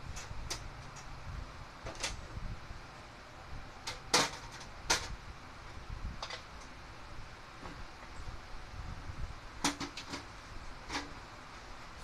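Aluminium step ladder being picked up and carried off: scattered knocks and sharp metallic clicks, the loudest two about four and five seconds in, over a steady low rumble.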